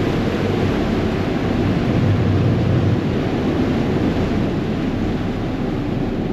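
Ferry under way: a steady low engine drone mixed with the rush of the wake churning behind the stern, and wind buffeting the microphone.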